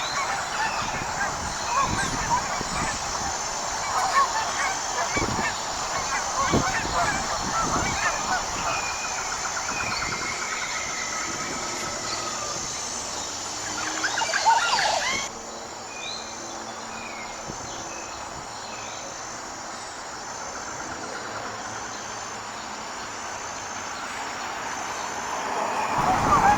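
Flock of wild geese calling, many honks overlapping. About halfway through the sound cuts abruptly to a quieter stretch with fewer calls, then the honking builds again near the end.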